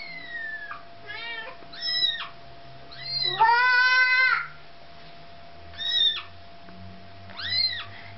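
Kitten and mother cat meowing: a series of about seven short, high-pitched meows every second or so, with one longer, louder call about halfway through, as the mother cat tries to reclaim her kitten.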